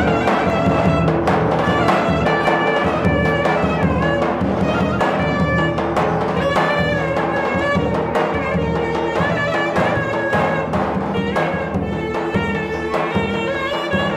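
Instrumental break of a Turkish folk song: clarinet and violin playing the melody over regular beats of a davul bass drum.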